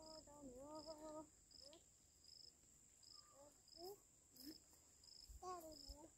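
Insects chirping: a short high chirp repeating evenly about every two-thirds of a second over a constant thin high tone. A toddler's babbling sounds come in at the start, in the middle and near the end.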